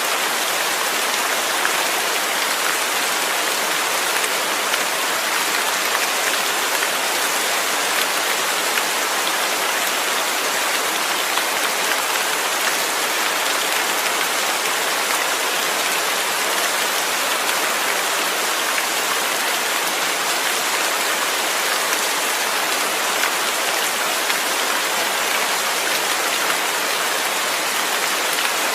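Steady rain falling: an even, unbroken hiss with faint scattered ticks of drops.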